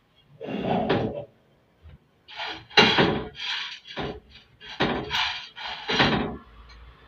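Chickpeas dry-roasting in a frying pan, rattling against the pan in a string of short, irregular bursts as they are worked in the pan.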